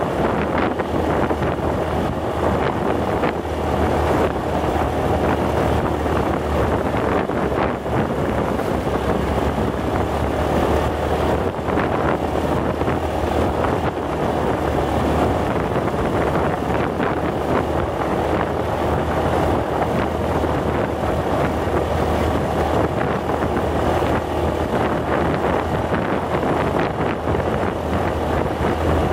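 Wind buffeting the microphone of a moving vehicle, over a steady low engine drone, with no letup.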